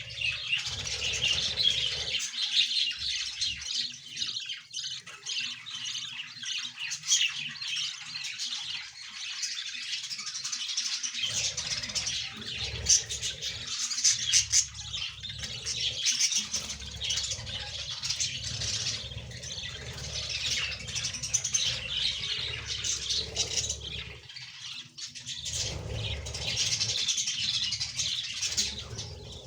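Budgerigars chattering continuously, a dense stream of quick chirps and squawks, with a low rumble that comes and goes underneath.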